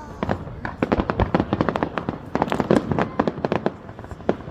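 Fireworks going off: a dense, rapid run of crackles and pops, several a second, with some heavier bangs.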